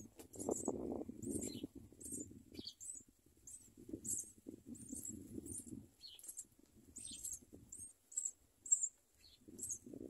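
Nestling birds begging with thin, very high chirps about twice a second, over soft rustling as they jostle in the nest while being fed. The rustling dies away near the end while the chirps go on.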